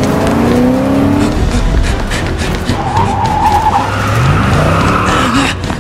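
Car engine revving, its pitch rising near the start and again about four seconds in, with tyres squealing about three seconds in.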